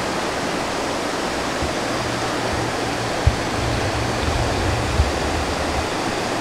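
Small waterfall pouring over a rock ledge into a pool on a mountain stream: a steady rushing splash. A low rumble sits underneath for a few seconds in the middle, with two faint knocks.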